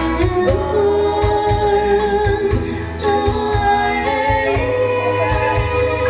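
Female singer performing with band accompaniment: a held, sung melody over a steady bass beat.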